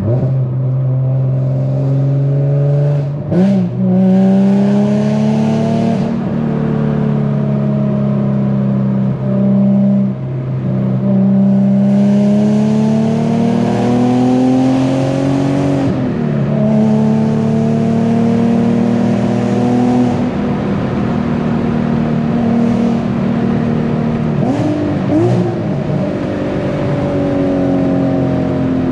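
Infiniti G37 sedan's VQ V6 engine under way. Its note climbs steadily and drops back sharply several times as it shifts through the gears.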